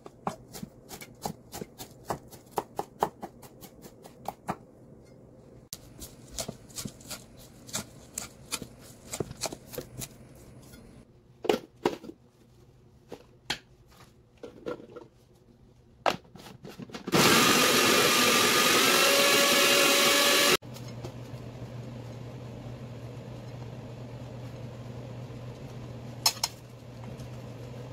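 A knife taps quickly on a wooden cutting board as garlic cloves are sliced. Then an electric food processor running on onion chunks gives a loud, steady whir for about three seconds. That stops abruptly, and a quieter steady low hum follows.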